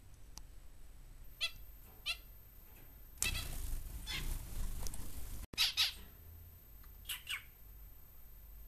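Small exotic cage birds giving short, sharp squawking calls, several times. About three seconds in there are two seconds of noisy rustling that stop abruptly.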